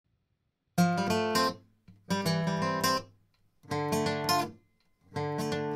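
Background music: acoustic guitar strumming short chord phrases, each followed by a brief pause.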